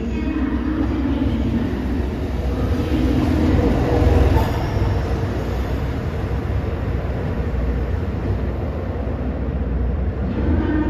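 KiHa 283 series diesel express train running: a steady, loud rush of engine and wheel noise that swells about four seconds in.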